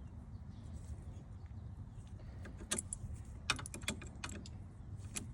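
Light metallic clicks and rattles in a quick cluster partway through, with one more near the end, as the turn signal lever is worked loose and unscrewed from the steering column. A steady low hum lies underneath.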